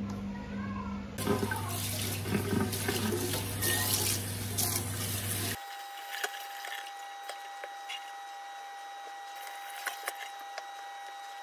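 Tap water running and splashing in a stainless steel kitchen sink as it is washed down with a cloth, over a low hum. About five and a half seconds in the sound drops suddenly to a quieter steady tone with a few faint clinks.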